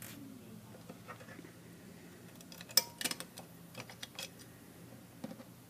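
Light clicks and taps of metal parts being handled at a pneumatic rivet tool's offset nose assembly, with a quick cluster of sharper clicks near the middle, over a faint steady low hum.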